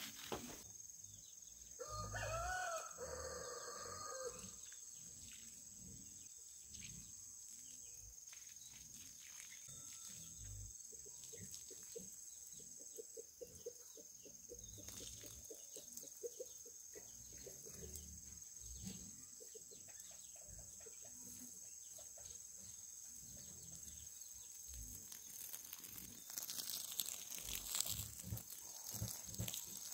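A rooster crows once about two seconds in, and chickens cluck in a quick run of short calls in the middle. Near the end, water from a garden hose sprays and splashes onto the soil.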